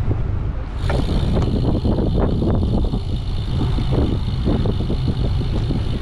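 Wind buffeting the microphone of a camera on a moving bicycle, with rumble and knocks from the tyres rolling over a bumpy path. A steady high-pitched buzz joins about a second in.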